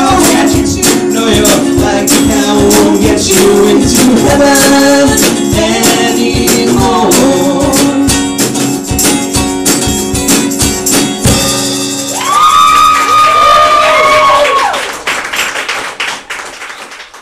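Live band finishing a song: strummed acoustic guitar and drums under sung vocals, then from about twelve seconds in a long held final note before the music dies away.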